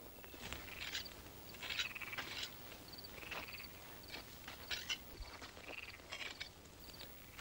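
Night ambience of small animals chirping: many short, high chirps repeat throughout, some as quick trills, faint under the scene.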